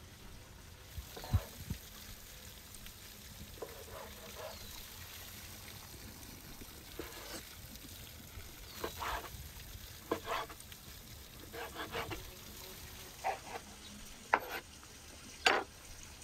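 Scattered soft wet squelches and clicks of diced raw meat being handled on a wooden board, over a quiet outdoor background; the loudest is a sharp click near the end.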